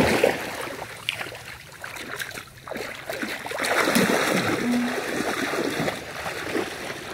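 Water splashing and sloshing in a shallow stream, swelling for a couple of seconds about halfway through.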